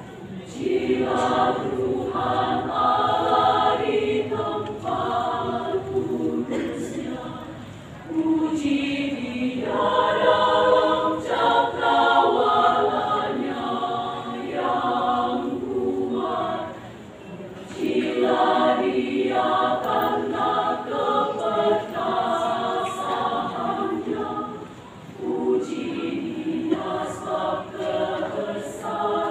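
Choir singing in several sustained phrases, with brief breaks between them.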